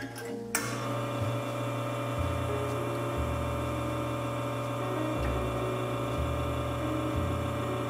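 Lelit Bianca V3 espresso machine's rotary pump switching on with a click about half a second in and then running steadily, a low hum, as it pushes water and detergent against a blind basket during a backflush cycle.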